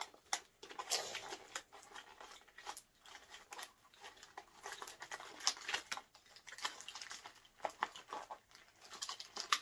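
Plastic toy packaging being handled: irregular crinkling and rustling with light clicks and taps.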